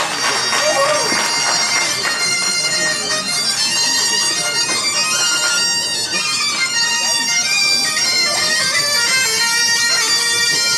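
Bagpipes playing a tune: a moving melody over steady held drone notes.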